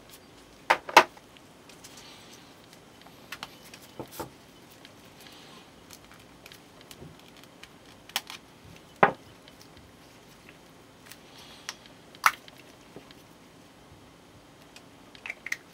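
Small plastic Nendoroid figure parts clicking and snapping as they are handled and pulled apart, with faint plastic rustling in between. There are about eight sharp clicks spread irregularly, two close together about a second in and a single loud one near the middle.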